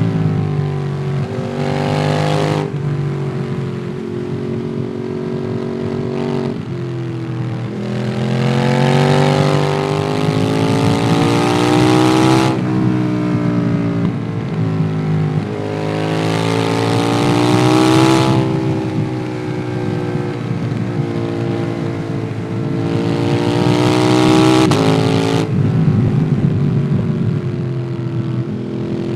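Ducati Monster 821's L-twin engine through a QD Twin Gunshot aftermarket exhaust, heard onboard while riding. The engine note climbs under throttle four times, with lower off-throttle stretches in between.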